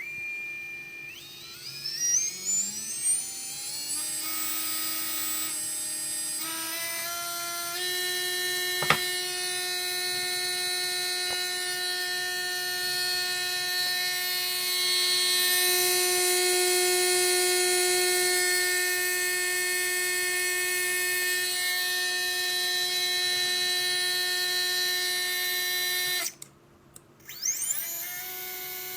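Readytosky 1804 brushless drone motor spinning up in steps to a high steady whine, then stopping abruptly about 26 seconds in and quickly spinning up again near the end. There is one sharp click about 9 seconds in. The motor is one the uploader says has bad bearings and severe vibration.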